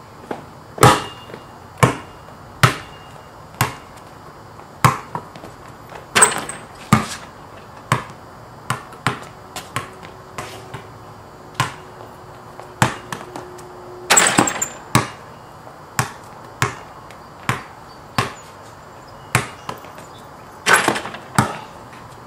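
Sharp knocks about one a second, unevenly spaced, over the steady hiss of heavy rain. A faint steady hum runs from about nine seconds in, and a louder cluster of knocks comes around fourteen seconds.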